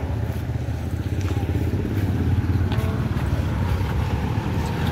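A motor vehicle engine running steadily close by: a low, even rumble with no change in pitch.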